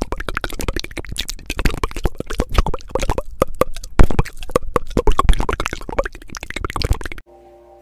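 A person's wet mouth noises right at the microphone: rapid lip smacks, tongue clicks and spit sounds, mimicking how whispering sounds up close in the ear. They cut off suddenly near the end, leaving faint steady tones.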